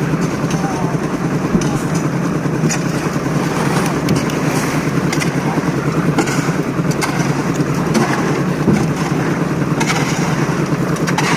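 An engine runs steadily and loudly, with scattered short knocks and clanks over it.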